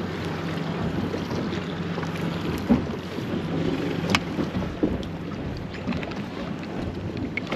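Low steady hum of an idling boat engine under wind noise, with a couple of sharp knocks a few seconds in.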